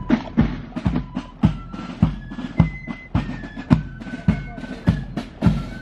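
Military marching band playing, with a bass drum beating a steady march about twice a second under a tune of held notes.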